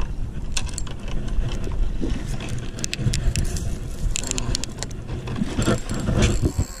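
Rustling and scuffing through tall weeds, with a steady low rumble and scattered clicks and scrapes from a body-worn camera being jostled as its wearer moves.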